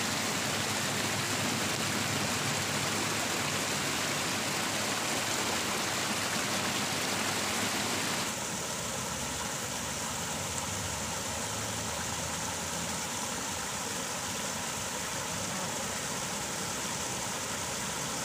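Steady rush of running water in a small irrigation ditch. About eight seconds in it changes abruptly to water spilling over a small concrete weir, slightly quieter, with a faint steady hum underneath.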